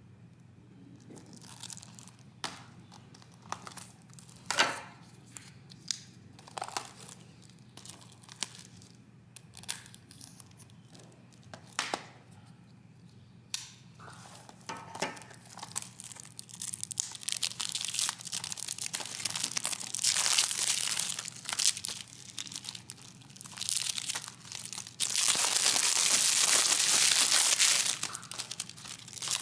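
Plastic shrink wrap on a Blu-ray case being slit with a folding knife and peeled off: scattered crackles and clicks at first, then long stretches of crinkling and tearing, the loudest lasting a few seconds near the end.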